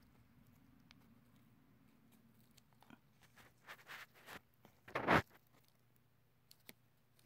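A marker pen prodding at a beetle in loose coconut-fibre substrate and bark inside a plastic deli cup: a run of short rustling, scraping noises starting about three seconds in, the loudest one a little before the end of the run, then two faint clicks.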